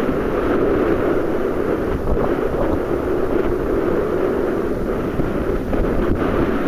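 Steady wind buffeting the microphone on a sailing yacht under way, mixed with the rush of sea water along the hull.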